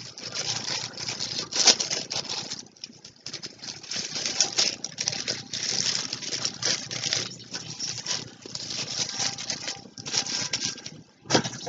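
Plastic packaging crinkling and rustling in irregular handfuls as items are handled and unwrapped.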